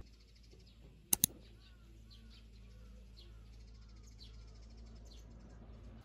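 Small birds chirping, with a run of short repeated chirps and higher chirps scattered throughout over a low steady background hum. Two sharp clicks in quick succession about a second in are the loudest sound.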